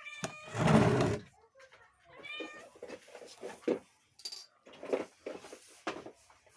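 A kitten meowing twice, about two seconds apart, with a loud rustling burst right after the first meow and light scattered knocks and rustles afterwards.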